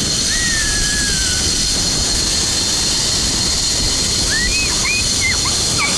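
Steady rushing of wind over the microphone as a tandem zipline trolley runs down the cable at speed, with a faint high whine from the trolley's pulley. A few brief high squeals cut through the rush, once near the start and several times about two-thirds of the way in.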